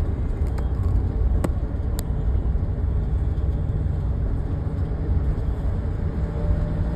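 Steady low rumble of a car driving: road and engine noise heard from inside the car, with two sharp clicks about a second and a half and two seconds in.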